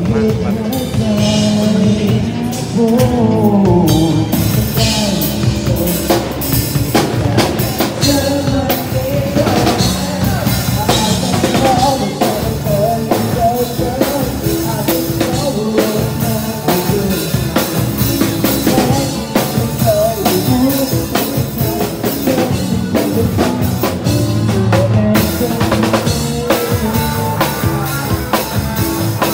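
Live street band playing amplified music: a drum kit keeps a steady beat under a sung melody.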